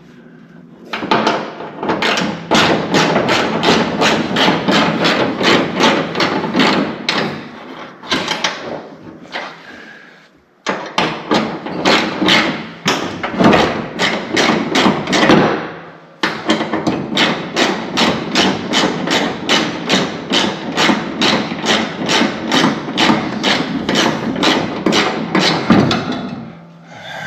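Rapid, even hammering, about five blows a second, in long runs broken by two short pauses.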